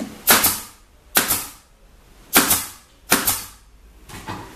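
Pneumatic pin nailer firing four times, sharp shots about a second apart, pinning a wooden horn frame onto a speaker box panel.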